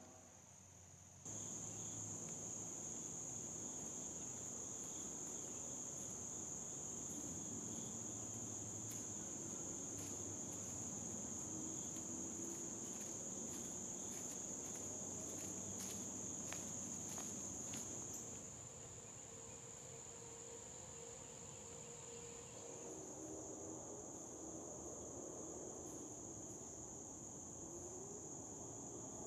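Steady, high-pitched chorus of insects in summer woodland, starting about a second in. Through the middle, light crunching footsteps on dry leaves sound over it.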